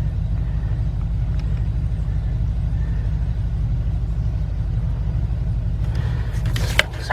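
A steady low mechanical rumble with a rapid, even pulse, and a few sharp clicks near the end.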